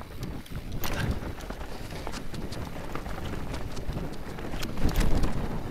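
Mountain bike riding down a dirt and rock trail: tyres rolling over dirt and stones and the bike rattling in a run of irregular knocks and clicks over a constant low rumble, with a harder jolt about a second in and another near the end.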